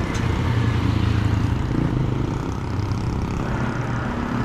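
Road traffic passing: a motor vehicle's engine drones by, loudest in the first two seconds and then easing off.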